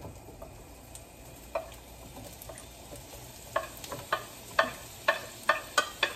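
Sliced onions and garlic sizzling in hot oil in a frying pan. From about halfway on, a spoon clinks sharply about twice a second as the onions are scraped off the plate into the pan.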